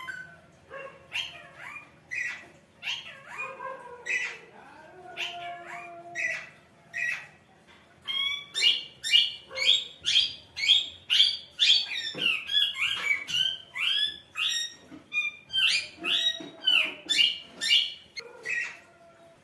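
Pet parrot whistling and chirping in imitation of a phone ringtone. At first it gives scattered short notes and a few drawn-out whistles. From about eight seconds in it breaks into a fast run of sharp chirps, about two a second, which stops shortly before the end.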